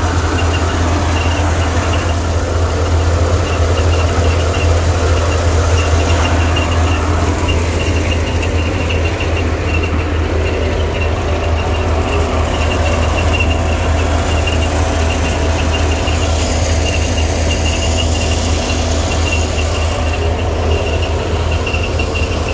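Tractor-powered onion seed thresher running steadily: a loud, even engine drone, with the machine's running noise over it and a high whine that comes and goes.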